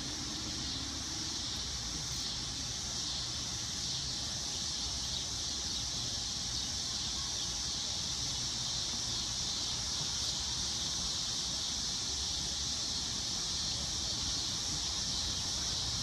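Dog-day cicada buzzing: a steady, high-pitched drone that does not break.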